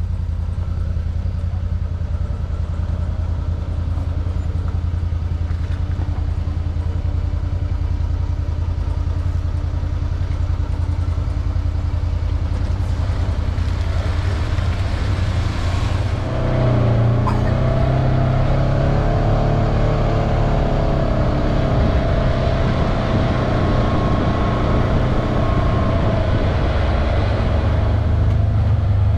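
Side-by-side buggy's engine running as it crawls over rough track. About halfway through it gets louder and its pitch rises and falls with the throttle.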